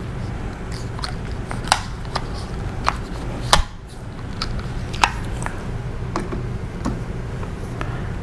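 Scattered light clicks and taps of tools and rifle parts being handled while a stock is taken off, the sharpest about three and a half seconds in, over a steady low hum.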